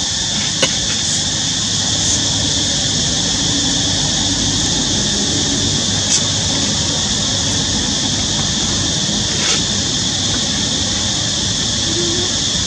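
A steady, even hiss, strongest in the high range, with a few faint clicks.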